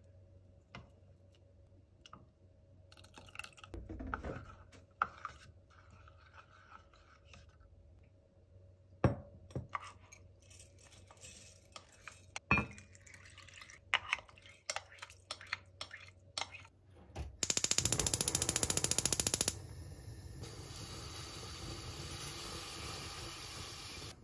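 Kitchen prep sounds: scattered clinks and knocks of glass bowls, a wooden spoon and a cast-iron pot, with the rustle of rice being poured into the pot. About two-thirds of the way in, a gas stove's igniter clicks rapidly for about two seconds. After that comes the steady hiss of the lit burner under the lidded pot.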